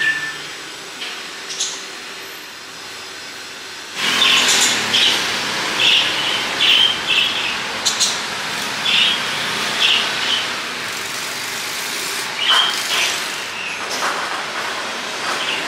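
A low hiss for the first few seconds, then outdoor street ambience: steady traffic noise with repeated short bird chirps, and a few sharp clatters of plastic lids and fruit being handled.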